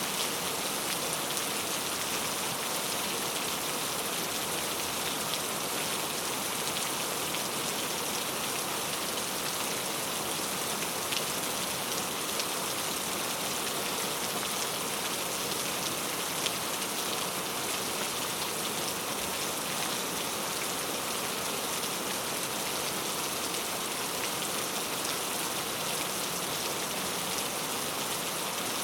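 Heavy rain falling steadily on a camping tent, an even hiss with a few sharper drop ticks scattered through it. No thunder.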